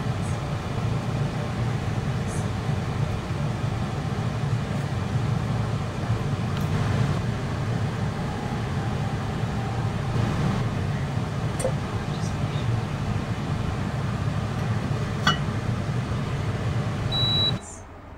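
Induction cooker running: a steady low hum with fan noise, a few light clicks, and a short high beep near the end just before the sound cuts off.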